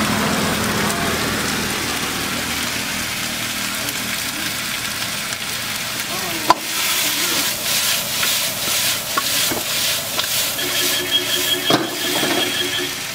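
Chicken masala sizzling in a wok as it is stir-fried, the metal ladle scraping and knocking against the pan in repeated strokes. It starts about halfway through, after a steady background hum, and there is one sharp knock near the end.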